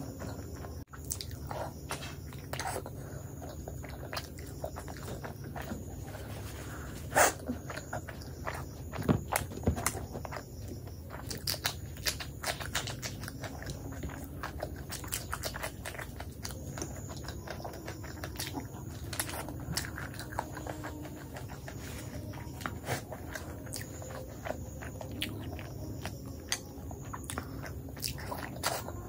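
Close-miked chewing and wet mouth sounds of someone eating, with irregular smacking clicks throughout. The loudest smack comes about seven seconds in.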